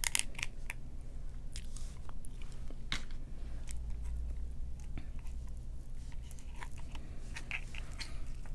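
Close-up crackles and small clicks of boiled seafood shell being picked and peeled apart by hand, scattered and irregular, a few a second at most.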